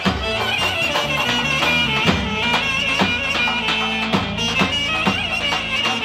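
Loud Romani wedding dance music (Roman havası): an ornamented high lead melody over a steady drum beat of about two strokes a second.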